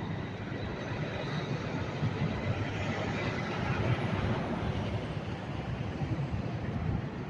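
Steady low rumble of heavy vehicle engines under a constant hiss, with no distinct knocks or crashes.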